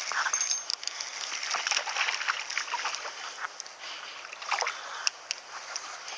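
Irregular splashing and sloshing at the water surface as a hooked trout thrashes, mixed with sharp crackles and rustles.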